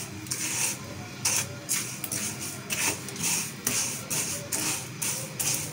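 A spatula stirring dry granulated sugar in a non-stick pan, the crystals scraping and rustling in repeated strokes, about two to three a second. The sugar is still dry and unmelted, heating over a low flame on its way to caramel.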